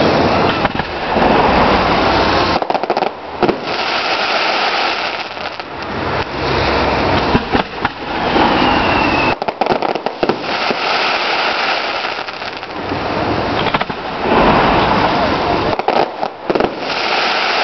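Public fireworks display going off continuously: dense crackling and popping with repeated bangs, and a brief whistling tone about nine seconds in.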